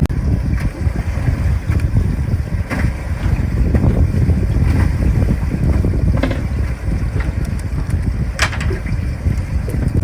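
Wind buffeting the microphone aboard a boat under way, a loud gusting rumble, with three brief sharp noises standing out over it.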